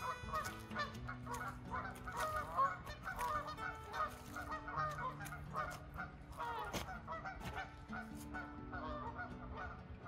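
A flock of Canada geese honking, with many short calls overlapping in a busy, continuous chatter.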